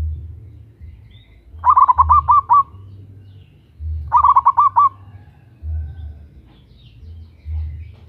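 Zebra dove (perkutut) singing its cooing song: two phrases of about five quick rippling notes each, roughly two and a half seconds apart. A low pulsing sound repeats underneath about every two seconds.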